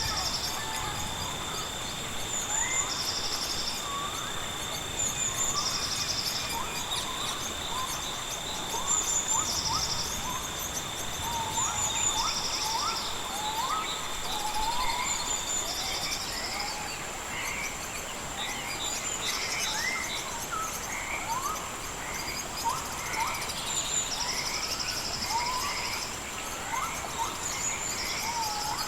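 Birds chirping with many short rising calls, over a steady high-pitched insect drone and repeated bursts of insect trilling every couple of seconds. A second steady insect tone stops about halfway through.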